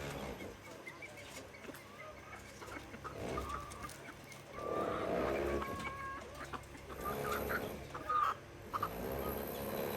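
Chickens clucking, a series of short calls, the loudest about halfway through and again near the end.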